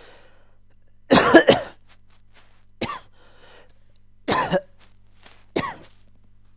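A person coughing four times, the first a loud double cough about a second in, the others shorter and spaced a second or so apart.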